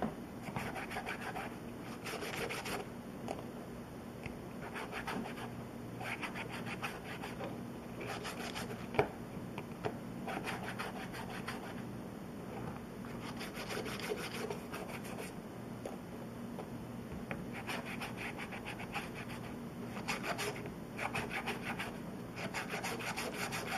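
Small flat file rasping along the end of a thin wooden craft stick in bouts of quick back-and-forth strokes with short pauses between. A single sharp click about nine seconds in.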